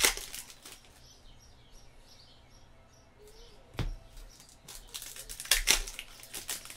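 Foil trading-card pack wrappers crackling and cards being handled, in two spells at the start and near the end, with a single soft thump against the table in between.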